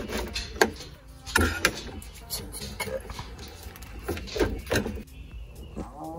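Hard crust of a freshly baked loaf crackling and crunching as a serrated bread knife saws through it and then as hands tear the loaf apart: a string of irregular crisp crackles.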